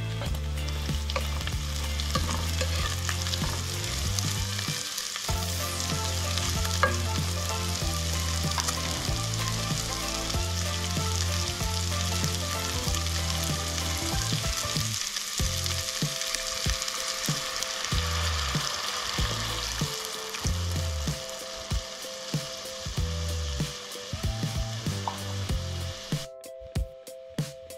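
Speck sizzling as it fries in butter in a pan, a dense steady crackling hiss that thins out in the last several seconds as cream goes in. Background music with low notes changing about once a second plays underneath.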